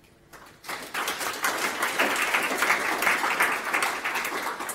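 Audience applauding. The clapping starts about half a second in, is at its fullest for about three seconds, and begins to fade near the end.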